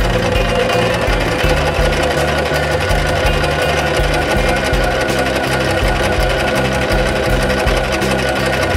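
Singer sewing machine running steadily at speed, the needle stitching fabric through a Simanco 36594 hemmer foot as it rolls a hem. Background music plays along with it.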